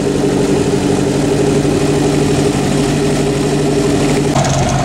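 Boat's inboard sterndrive engine idling steadily while it runs with its drive in a water test tank. Near the end its note shifts, with a higher tone coming in.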